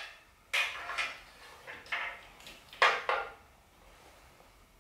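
Wire strippers snapping as insulation is pulled off the ends of the fixture's wires: about half a dozen short, sharp clicks at uneven spacing over the first three seconds, the loudest almost three seconds in.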